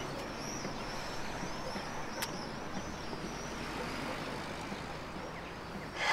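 Outdoor street ambience: a steady hum of traffic with small birds chirping over it. There is a single click about two seconds in and a brief louder noise at the very end.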